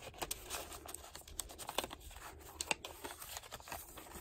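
Paper rustling and crinkling as hands handle a handmade junk journal's pages, sliding a card into a paper pocket: faint, irregular crinkles and light taps.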